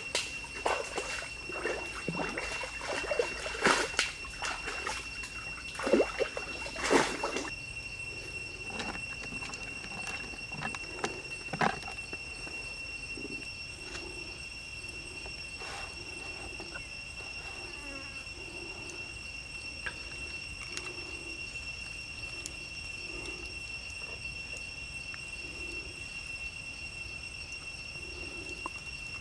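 Steady high-pitched insect drone throughout. Over the first several seconds come knocks and rustles from wooden skewer sticks being handled. Later there are soft low pulses about once a second.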